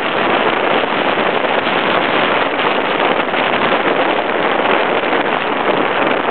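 Steady, loud rush of whitewater rapids at the standing wave, mixed with wind buffeting the microphone.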